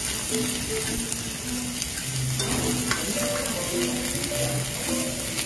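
Korean beef steak, mushrooms, garlic and green chili peppers sizzling in oil in a hot round pan: a steady frying hiss.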